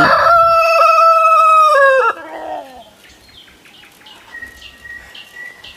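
Domestic rooster crowing: the long held last note of the crow, which drops in pitch and ends about two seconds in, followed by faint clucking.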